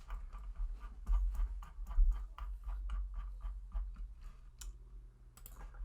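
Computer keyboard and mouse clicking in quick, irregular taps over a low steady hum.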